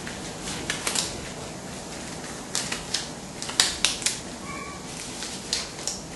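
Disposable gloves being pulled onto the hands, making a series of short sharp crackles and snaps as the thin glove material is stretched and worked over the fingers.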